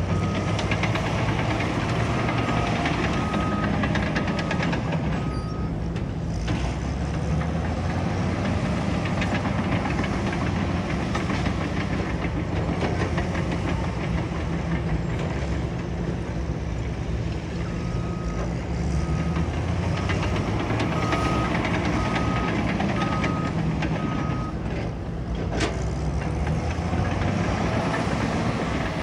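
Caterpillar bulldozer's diesel engine running with a steady clatter, and a reversing alarm beeping at an even pace in two spells: through the first five seconds or so, and again from about 18 s to 24 s.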